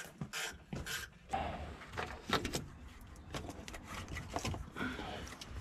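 Handling noise: scattered clicks, rustles and light knocks of hands working plastic wiring-harness connectors and parts at irregular moments.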